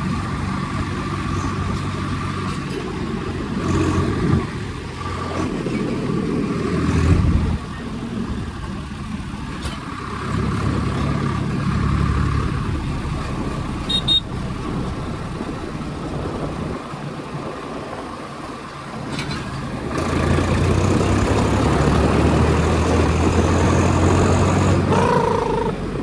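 Tractor engine running, its level rising and falling, then louder and fuller over the last several seconds.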